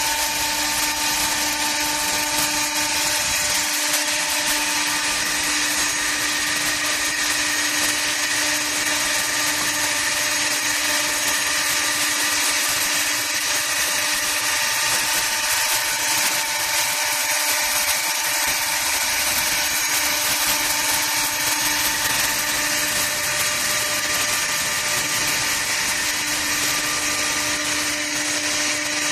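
Wood copying lathe running steadily: an even motor whine with a constant hiss over it, unchanging throughout.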